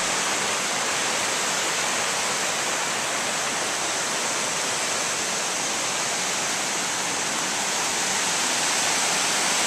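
Creek water rushing over rocky cascades, a steady, even rush that grows a little louder near the end.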